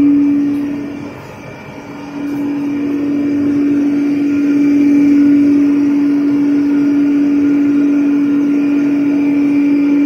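Automatic steam mawa kettle's motor-driven stirrer running, a steady hum. The hum drops away for about a second near the start and then comes back.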